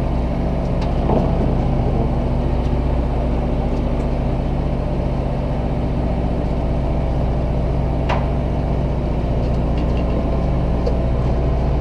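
A boat's engine running steadily, a low, even drone, with a few faint clicks over it.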